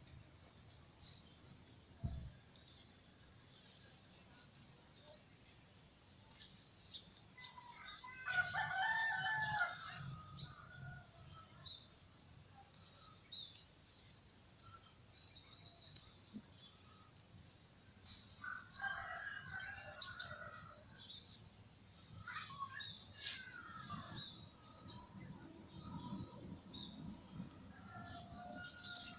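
A rooster crowing, once loudly about eight seconds in and again more faintly near twenty seconds, over a steady high whine and low rustling.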